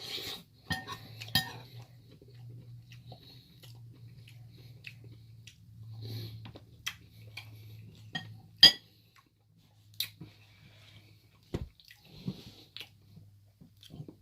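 Cutlery clinking and scraping against a dish while eating curry, a few sharp clinks among softer ones, with quiet chewing in between over a faint low steady hum.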